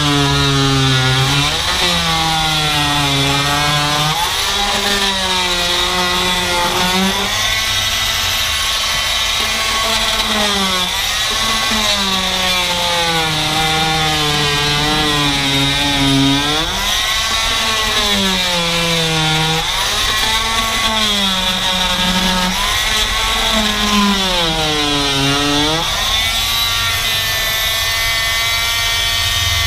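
Harbor Freight corded oscillating multi-tool running with a rigid scraper blade, its whine dipping in pitch every second or two as the blade is pushed under old boat carpet and then recovering. Near the end it runs at a steady pitch, off the carpet.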